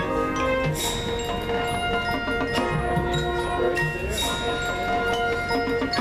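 Marching band music in a soft passage led by the front ensemble's mallet keyboards and chimes ringing over held notes. Two bright splashes come through, about a second in and around four seconds.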